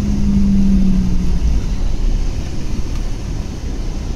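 Van engine and tyre noise heard from inside the cabin while driving: a steady low rumble, with an engine hum that fades out about a second and a half in.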